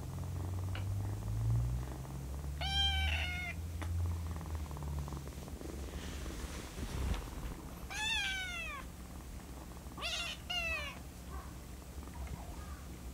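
A gray tabby-and-white kitten purring for the first few seconds, then giving high-pitched meows: two about three seconds in, one about eight seconds in, and two more about ten seconds in.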